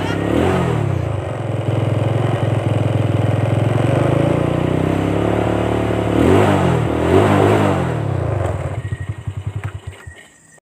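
A small engine running and revving, its pitch sweeping up and down several times, then breaking into a fading sputter and cutting out near the end.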